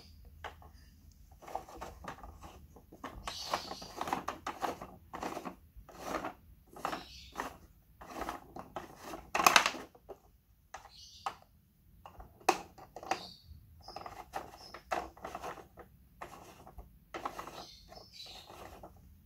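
Plastic spinning ride of a 1994 Bluebird Polly Pocket Carnival Fair playset being turned by hand, its turntable and star-shaped cups making irregular plastic clicks and scrapes; the ride's own spinning mechanism no longer works.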